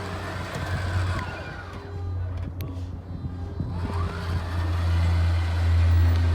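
RV slide-out motor running under wireless remote control, its whine rising then falling in pitch. One run stops about two seconds in and another starts about four seconds in, over a steady low hum.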